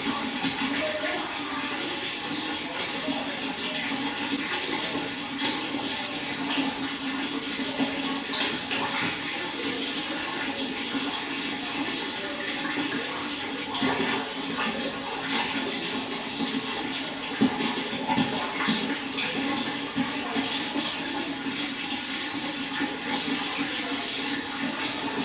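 Water running and splashing steadily, a continuous flow with small irregular splashes.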